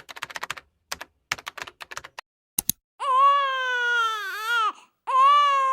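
A fast clatter of keyboard-typing clicks for the first two and a half seconds or so, then a young baby crying in two long wails, each falling in pitch as it ends.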